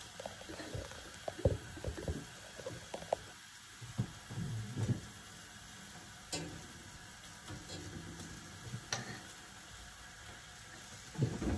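Zucchini slices sizzling quietly on a hot grill pan, with a few sharp clicks of a metal fork against the pan as the slices are arranged.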